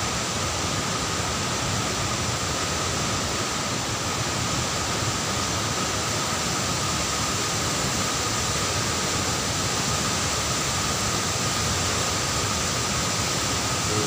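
Steady rush of water from a tall waterfall falling into its plunge pool.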